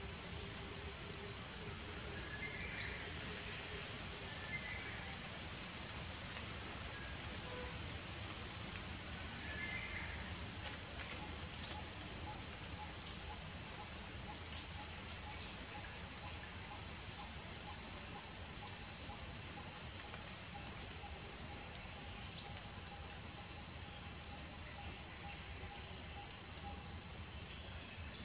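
Loud, steady, high-pitched insect drone that runs unbroken, typical of a tropical forest chorus of cicadas or crickets.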